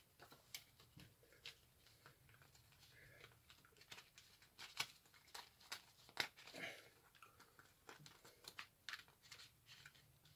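Faint handling noises: scattered soft clicks, taps and rustles of hands moving a CD booklet, case and box packaging, with a few sharper clicks around the middle.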